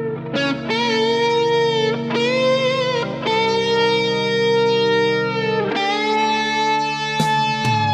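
Electric guitar playing a slow instrumental lead melody in long sustained notes with vibrato, over held backing chords. One note is held for over two seconds in the middle.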